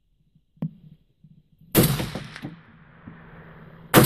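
AR-15 varmint rifle fired twice, about two seconds apart, each a sharp crack followed by a rolling echo. A small sharp click comes about a second before the first shot.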